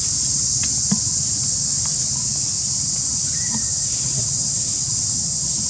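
Insects droning in a steady high-pitched chorus, with a low rumble beneath and a few faint clicks.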